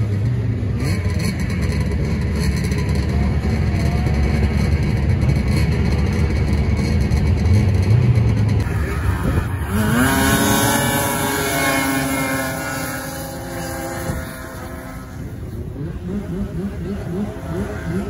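Racing snowmobile engines at full throttle, a dense steady drone, loudest about 8 seconds in. About 9 seconds in, a snowmobile launches and revs hard, its pitch climbing steeply, then holds a high engine note and fades as it pulls away.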